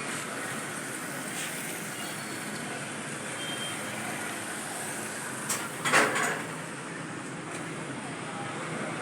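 Town-centre street ambience: a steady wash of traffic and passers-by, with a short, sharp, louder sound about six seconds in.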